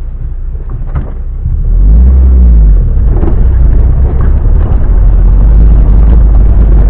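Off-road car's engine pulling along a rough dirt track, a heavy low rumble. It gets much louder about one and a half seconds in, revving up and back down briefly soon after.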